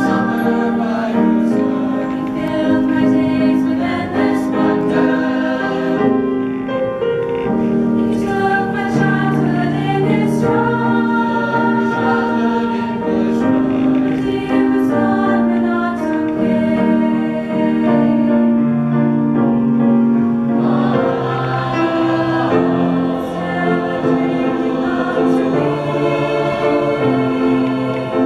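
Mixed teenage choir of boys and girls singing a show-tune medley in several parts, holding long sustained notes.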